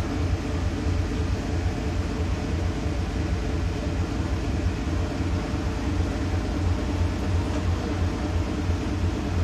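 Passenger ferry's engines running, a steady low drone and rumble with no letup.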